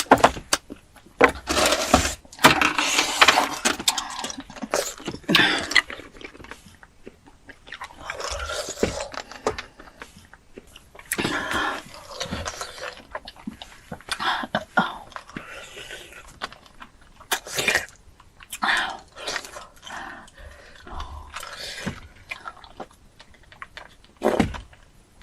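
Close-miked eating sounds: crunching and chewing of crisp food in irregular bursts with short pauses between them.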